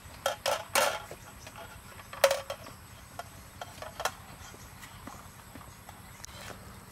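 A wooden spoon knocking against a stainless steel bowl while mashing boiled potatoes: three quick knocks in the first second, a louder one with a brief metallic ring about two seconds in, and another about four seconds in.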